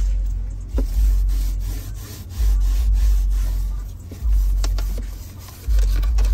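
Rubbing and rustling close to the microphone, with a deep thud about every one and a half to two seconds, each fading slowly, and light clicks in between: handling and cleaning noise inside a car.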